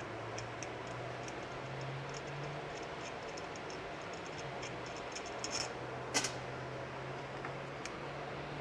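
Light metal clicks and ticks as small carburetor parts are worked by hand while a stuck booster gasket is picked out, with a short cluster of clicks and one sharper click near the two-thirds mark. A steady low hum runs underneath.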